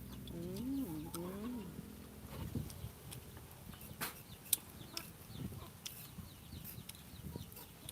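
A chicken clucking briefly in the first second and a half, a short wavering call, followed by scattered small clicks and snaps from rambutan being peeled and eaten.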